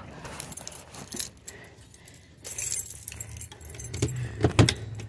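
Small metal objects jingling and clicking in scattered bursts, with rustling handling noise inside a car's cabin. The loudest clink comes near the end.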